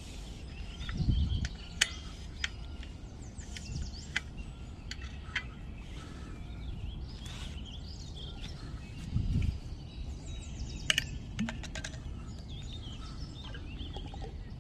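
Birds chirping, with scattered sharp clicks and knocks as a portable butane gas stove is handled and fitted onto its canister. Two brief low rumbles come about a second in and again near nine seconds.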